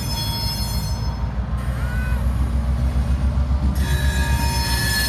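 CSX diesel locomotives passing close by, their engines running with a low, pulsing rumble. A high steel-wheel squeal joins in about four seconds in.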